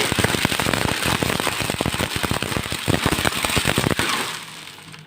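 Electric food chopper running on tamarind pulp and water, a dense crackling rattle of the pieces hitting the bowl; it stops about four seconds in.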